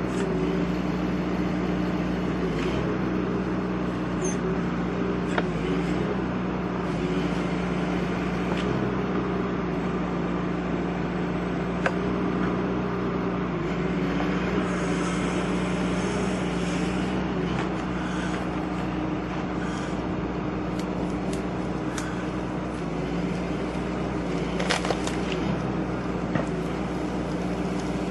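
Engine of the work machine carrying a hydraulic tree shear, running steadily at an even pitch, with a few sharp knocks as the shear is worked.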